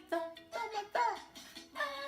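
Music: a melody with short, changing notes, some of them sliding in pitch.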